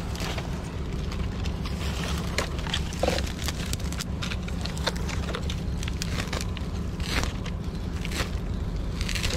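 Dry roots and twigs being pulled and snapped by hand, a scattered series of crackles and snaps. Under it runs a steady low mechanical hum from ships lying at anchor.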